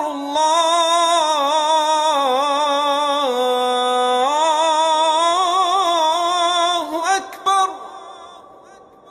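A solo voice chanting in long held notes with wavering, ornamented pitch glides. It stops at about seven and a half seconds in, and the sound then fades away.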